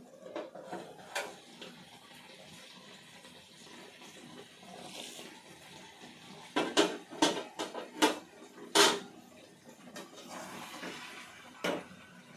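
Metal pan and cooking utensil clanking together on a gas stove: a few sharp clanks in quick succession about seven to nine seconds in and one more near the end, over a low steady hiss from chicken cooking in oil.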